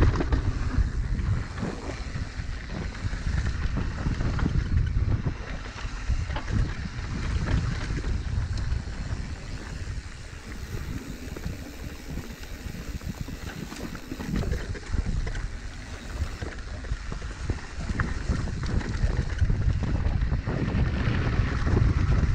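Mountain bike rolling fast down a rooty dirt trail: tyres rumbling and the bike rattling and knocking over roots, with wind buffeting the camera microphone. It is loudest near the start and the end.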